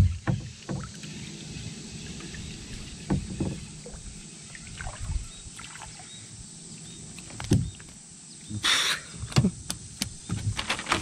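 Scattered knocks and thumps against a kayak's plastic hull and the rod as a small sunfish is reeled in and brought aboard, with a brief rush of noise about nine seconds in.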